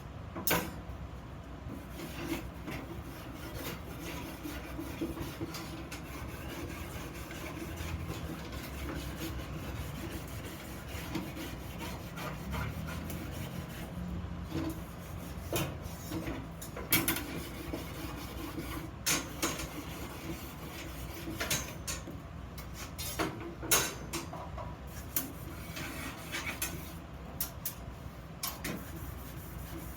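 Rubbing and scraping by hand on iron vase pieces, with scattered sharp knocks and clicks.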